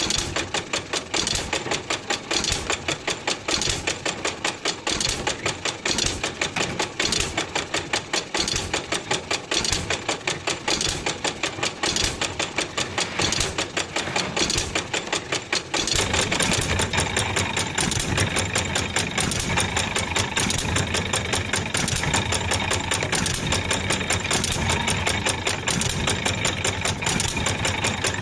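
3/4 HP Bluffton hit-and-miss stationary engine running and driving an antique wooden washing machine, with a fast, even clatter of clicks and knocks. About halfway through the sound turns fuller and deeper.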